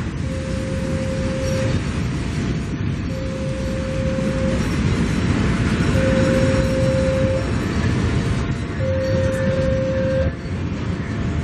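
Level-crossing warning alarm sounding an alternating two-tone signal, each note held about a second and a half, over the steady rumble of a long freight train of fuel tank cars rolling past. The rumble swells near the middle as a passenger train passes on the next track.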